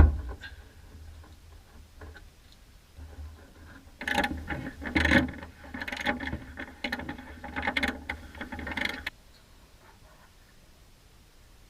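A sharp knock, then about five seconds of irregular clattering and knocking, as of parts and tools being handled at a workbench. It stops abruptly.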